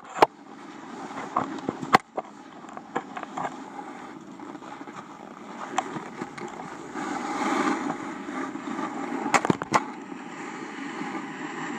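Snowboards sliding and scraping over groomed, packed snow: a steady rushing hiss that swells for a couple of seconds past the middle. A few sharp knocks cut through it, two close together near the end.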